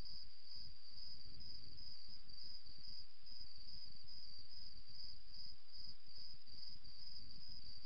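Steady high-pitched chirring of crickets as night ambience, over a low rumble of background noise.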